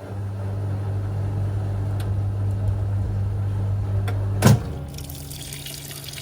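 National NA9450PN washing machine's motor humming steadily, cut off by a loud clunk about four and a half seconds in. Water then starts hissing into the tub as the machine begins filling for its first rinse.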